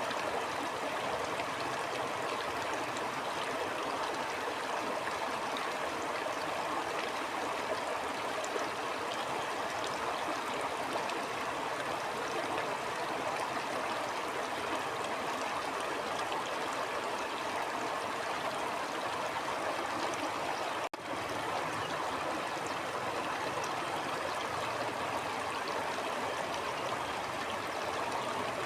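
Stream water flowing steadily over rocks, an even rushing and gurgling, broken by a split-second dropout about three-quarters of the way through.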